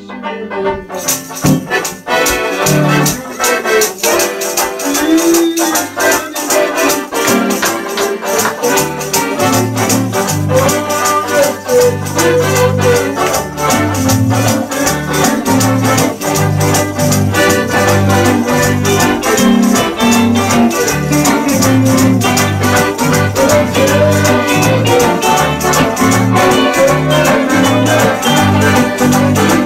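Live band playing upbeat gospel music: a piano accordion and electric guitars through an amplifier, over a bass line and a fast, steady rattling percussion beat. The full band comes in about a second in.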